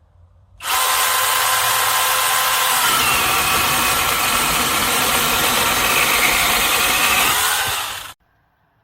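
Battery-powered 6-inch electric mini chainsaw running. It starts suddenly with a whine, its note changes about three seconds in, and it cuts off abruptly near the end.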